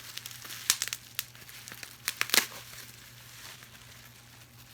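Wrapping on a mailed plant crinkling and crackling as it is pulled open by hand, with a few sharp louder crackles about one and two seconds in, then quieter rustling.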